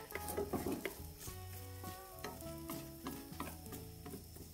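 Wooden chopsticks stirring cooked spaghetti around a nonstick frying pan, with light clicks and scrapes of the sticks against the pan, densest in the first second and then sparser.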